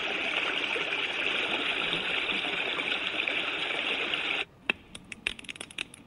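A star projector's built-in speaker playing a white-noise track of rushing water like a stream: a steady hiss that cuts off suddenly about four and a half seconds in. Scattered sharp crackles of a fire-crackling track follow near the end.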